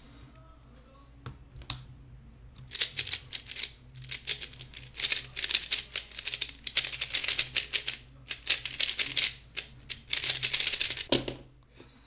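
A speedcube being turned fast by hand: dense clicking and clacking of its plastic layers in quick flurries with brief pauses, lasting about eight seconds, after a couple of soft clicks. It ends in a single dull thump.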